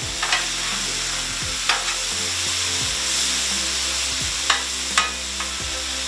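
Diced venison and vegetables sizzling steadily on a hot flat-top griddle, searing. A metal spatula clicks and scrapes against the steel plate a few times, sharpest about half a second in and near the end.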